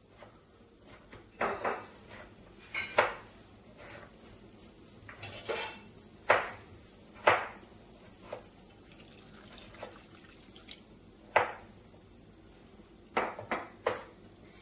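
Irregular clinks and knocks of metal kitchen utensils and pots being handled, about a dozen sharp strikes at uneven intervals, the loudest about a second and a half in, around three, six and seven seconds in, and one near eleven seconds.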